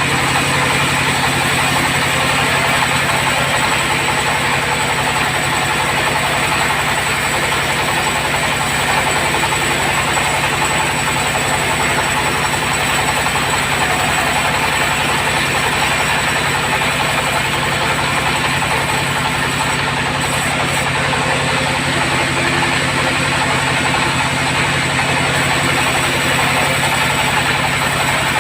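Sawmill bandsaw running steadily without a break: a constant engine-like hum under a broad, even hiss.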